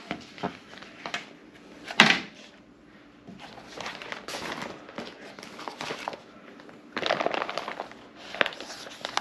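Dry bags being handled: the plastic and nylon fabric rustles and crinkles as the bags are lifted, laid on a table and turned over, with scattered clicks and one sharp knock about two seconds in.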